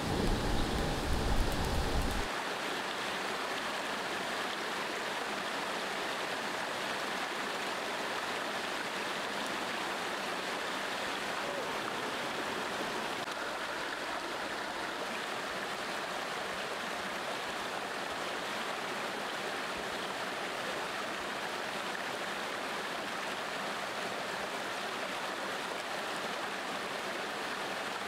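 Steady rushing of a flowing river over stones. A louder low rumble rides on it for the first two seconds, then stops.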